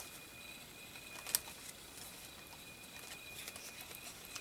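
Faint rustling and handling of paper craft supplies, with a single sharp tap about a second in.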